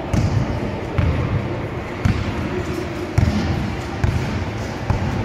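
A basketball being dribbled on a concrete court, one bounce about every second.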